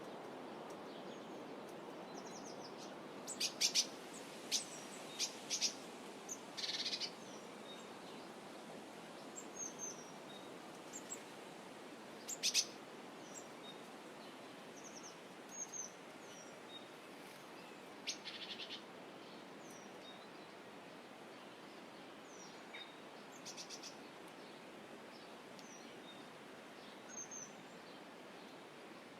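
Forest ambience: wild birds calling over a steady soft hiss. Sharp high chirps come in a cluster a few seconds in and again about halfway, with short falling whistled notes scattered throughout and a couple of brief buzzy trills.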